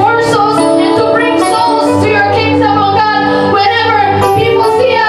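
Worship music: a woman singing held, sustained notes over chordal accompaniment with a steady bass.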